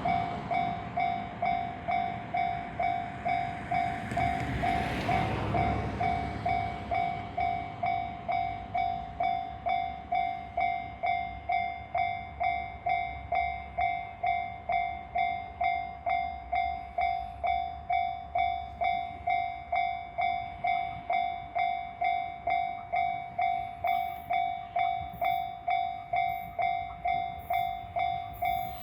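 Japanese level-crossing alarm, the JR standard electronic bell, sounding steadily at about two dings a second. During the first few seconds a JR 701 series electric train runs past, and its rumble fades away about six seconds in while the alarm keeps ringing.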